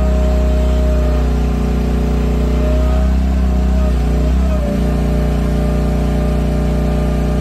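Cheap Chinese 1-ton mini excavator running, its engine and hydraulics giving a steady whine. About a second and a half in the pitch shifts and the engine note gets heavier, with a brief falling sweep near the middle, as the machine comes under load.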